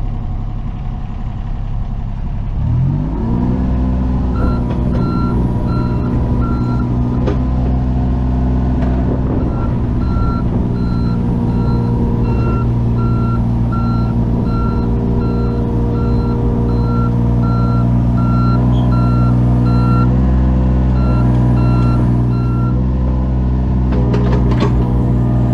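Skid-steer loader's engine revving up about three seconds in and then running steadily, while its backup alarm beeps repeatedly as it reverses, pausing briefly near the start of the beeping. A few knocks near the end.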